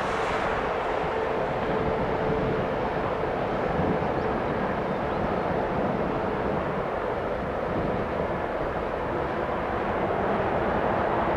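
Boeing C-17A Globemaster III's four Pratt & Whitney F117 turbofan engines on final approach: a steady jet rumble with a faint steady tone in it that fades about two-thirds of the way through.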